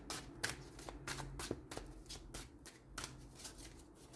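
A deck of tarot cards being shuffled by hand: a quick, even run of soft card slaps, about three a second.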